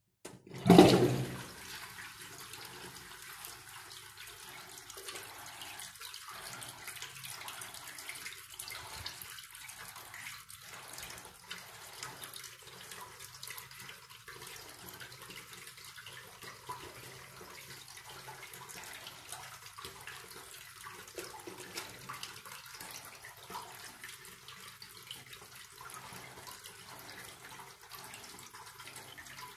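Metal squat toilet being flushed: the water comes on with a loud rush a little under a second in, then runs steadily from the inlet pipe across the metal pan and down the drain.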